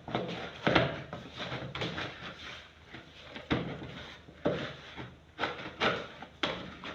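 Pie dough of flour, butter and water being kneaded and pressed by hand: a run of irregular soft thumps and rubbing, about one or two a second.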